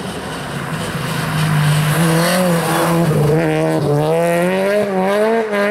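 Peugeot 208 rally car's engine running hard as the car comes closer and passes. Its note grows louder from about a second in, then climbs and drops back several times as the driver changes gear.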